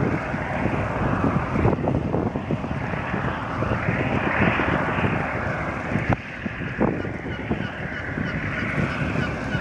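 Wind buffeting the microphone over open river water, mixed with the rushing wash of water behind a departing ferry. There are two brief knocks a little past the middle and a few short high calls near the end.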